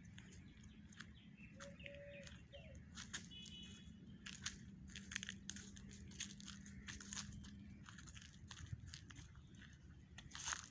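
Irregular crunching and crackling, as of footsteps on dry forest leaf litter, with a few brief bird calls a couple of seconds in and a faint steady hum that fades out near the end.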